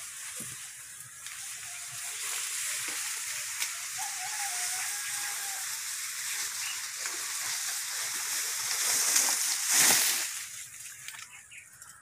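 Dry corn leaves and stalks rustling and brushing as someone moves through a cornfield, with a louder swish of leaves a couple of seconds before the end.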